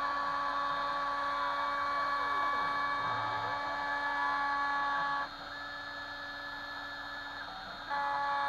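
Stepcraft 2/420 CNC router milling aluminium: the Kress FME 800 spindle running steadily, with machine tones that rise and fall in pitch as the axes move. About five seconds in, the louder tones drop away for a couple of seconds, leaving a quieter steady hum, then come back.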